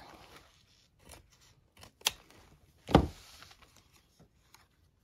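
Scissors cutting paper: a few quiet snips and a sharp click about two seconds in, then a thump about three seconds in, the loudest sound.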